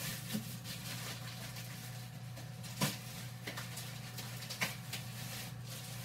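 Quiet kitchen handling noises over a steady low hum: a few light knocks and clicks, the clearest about three and four and a half seconds in.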